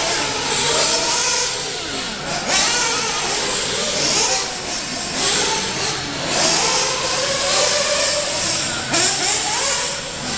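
Brushless electric motors of RC short-course trucks whining, the pitch rising and falling over and over with the throttle, including the SC10 2wd's 17.5-turn brushless motor, over a steady hiss.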